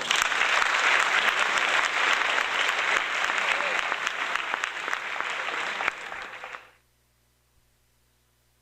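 Crowd applauding for about six and a half seconds, then dying away, used as a praise sound effect after a correct answer.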